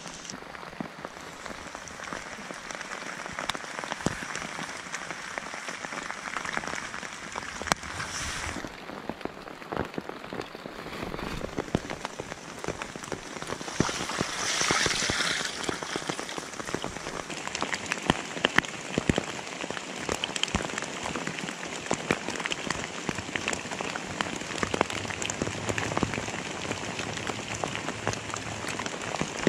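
Steady rain falling on wet leaf litter, with scattered sharp drop ticks. About halfway, a brief splash of collected rainwater poured from a poncho into a metal mess tin.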